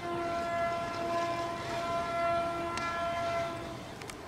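Train horn sounding one long, steady blast that stops about three and a half seconds in.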